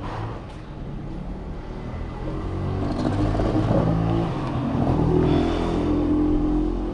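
A motor vehicle's engine running close by, a steady low hum that grows louder about two seconds in and stays up.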